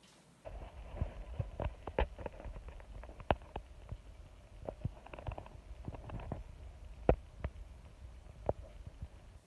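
Wood fire burning in a fireplace: a low rumble with irregular crackles and pops, starting about half a second in.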